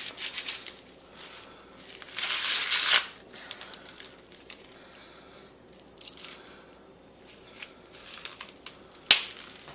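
Ears of corn being shucked by hand: dry husks crinkling and tearing, with one loud rip lasting about a second two seconds in and a sharp snap near the end.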